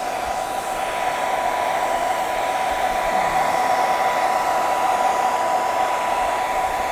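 Handheld hair dryer running steadily on blow: a constant rush of air with a steady whine.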